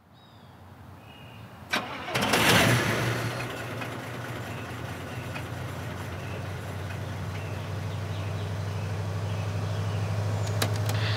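A click, then a car engine starts about two seconds in and settles into a steady low running hum that slowly grows louder. A few faint clicks come near the end.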